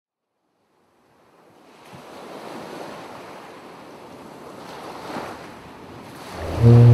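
Sea surf washing, fading in from silence after about a second and swelling. Near the end a sudden loud, low, steady drone with a strong hum cuts in over it.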